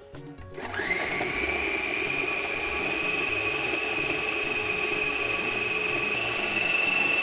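Electric food processor motor spins up about half a second in and runs with a steady high whine, puréeing tomatoes, peppers and onions. Its pitch steps slightly higher near the end.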